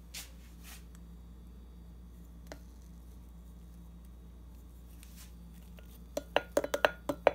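A plastic measuring spoon knocking and scraping against a glass blender jar to drain maple syrup off it: a quick run of sharp clicks and taps starting about six seconds in, after a few seconds of faint low hum with only a few soft clicks.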